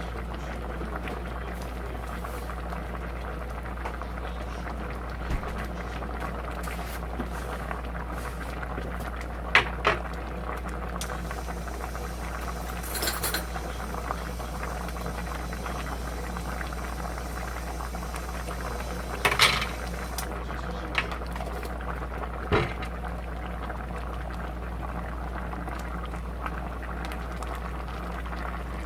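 A pot of gochujang stew bubbling steadily at a boil, with a few sharp clinks or knocks along the way.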